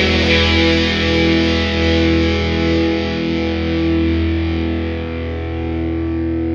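Distorted electric guitar chord ringing out and slowly fading at the end of a punk rock song, with no drums under it.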